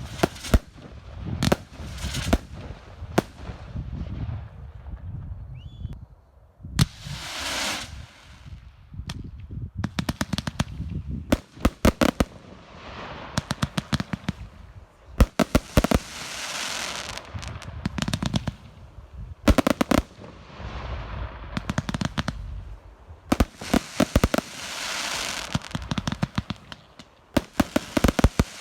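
Professional display fireworks: shells bursting with sharp bangs, some in rapid strings of reports, with spells of hissing crackle and low rumble between the bursts.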